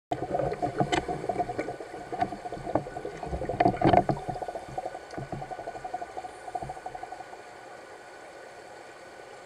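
Muffled underwater sound of a pool heard through a camera: bubbling and gurgling with scattered knocks, loudest about four seconds in, then settling into a steadier, quieter hum.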